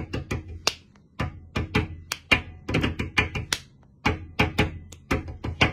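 A fast drum pattern tapped out by hand as thumps and taps, heavy on bass-drum hits. It comes in three quick runs with short breaks about a second in and again about four seconds in.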